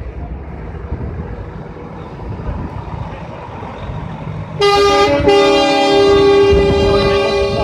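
Volvo FH tractor unit's horns sounding a loud chord of several notes as the truck drives past, with a brief break about half a second in, then held to the end. Beforehand there is only the low rumble of the truck moving off.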